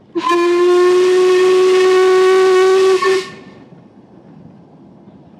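Narrow-gauge steam locomotive's whistle sounding one long, steady blast of about three seconds, with a brief break just before it stops. Afterwards the train runs past.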